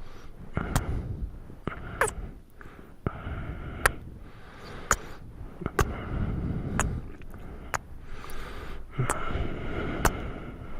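Close-miked kissing sounds: sharp lip smacks about once a second, with breathing between them.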